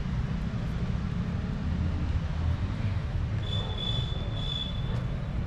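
Outdoor street ambience: a steady low rumble of traffic noise, with a thin high whistle-like tone for about a second and a half past the middle.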